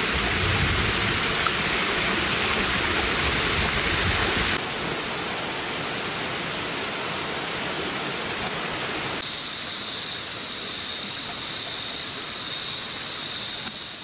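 A small waterfall splashing over rocks into a pool, an even rush of water. About four and a half seconds in it gives way to a quieter rocky forest stream with a steady high-pitched whine above it. From about nine seconds a softer forest background carries on with a steady high tone, lower in pitch than before.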